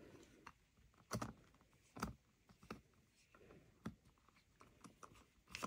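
Small metal bag-lock hardware being handled and fitted: a few sharp clicks and taps, spaced out, with fainter ticks between, as the lock's back piece is put on over the flap.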